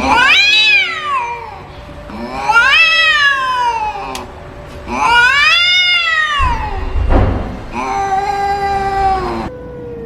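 A cat meowing four times, each a long drawn-out call; the first three rise and then fall in pitch, and the last is flatter.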